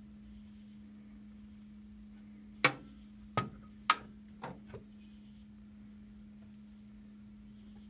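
Metal parts clinking and knocking together: three sharp knocks with a short ring about half a second apart, then two lighter ones. Under them run a steady low hum and a high, cricket-like trill that breaks off and resumes every second or two.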